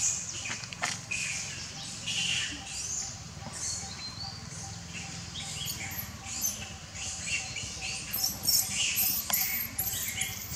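Infant long-tailed macaque crying with repeated high squeaks and squeals, coming faster near the end as it is dragged along under its mother: a distress and begging call for milk.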